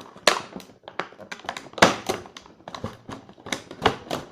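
Play-Doh toy pieces being handled on a table: a string of irregular clicks and knocks, with two sharper knocks near the start and about two seconds in.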